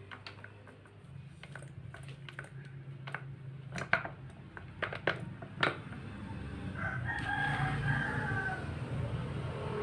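Metal clinks and knocks as the gear shafts of a Suzuki Multicab manual transmission are handled and lifted from the case, the sharpest about four and five and a half seconds in. A rooster crows for about two seconds near the end.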